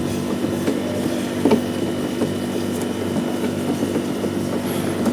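A steady low hum runs throughout, with a few light clicks as a bolt on a scooter's plastic body panel is undone with a wrench.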